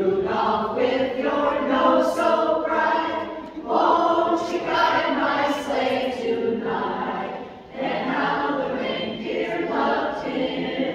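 Women's barbershop chorus singing a cappella in close harmony, in phrases broken by short breaths about a third and about two-thirds of the way through.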